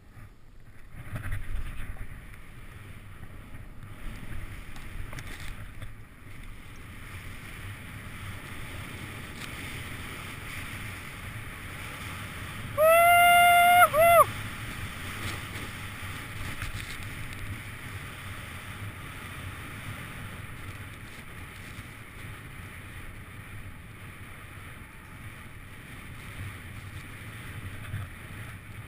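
Off-road vehicle driving, its engine and rumbling running steadily. About halfway through the horn sounds, one long honk and then a short one.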